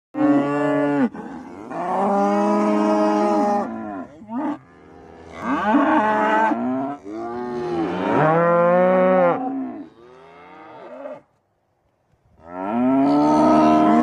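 Cattle mooing: a run of long, drawn-out moos one after another from several cows and calves. There is a second of silence about eleven seconds in, and then another long moo.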